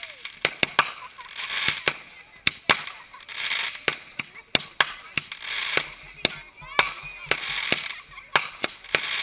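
Consumer fireworks going off: a quick, irregular string of sharp bangs and pops from small aerial shells bursting, over the steady hiss and crackle of a fountain spraying sparks on the ground.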